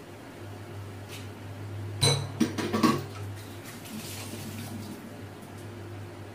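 Cookware clinking: a quick run of sharp clinks about two seconds in, over a steady low hum.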